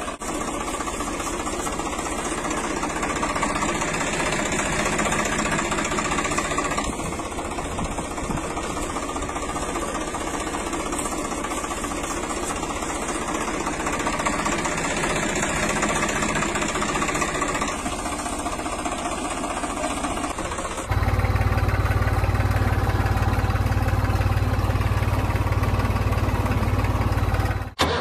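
Tractor engine running steadily at a low, even pace. About three quarters of the way through it turns louder, with a stronger deep rumble.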